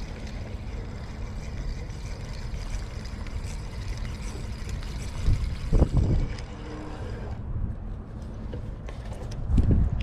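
Wind buffeting the microphone: a steady low rumble with two stronger gusts, one about halfway through and one near the end.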